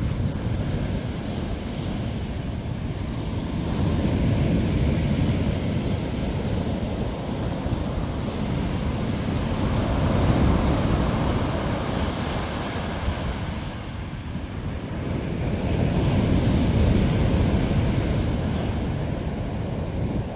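Ocean surf breaking and washing up a sandy beach: a continuous rush that swells and eases in three surges about six seconds apart.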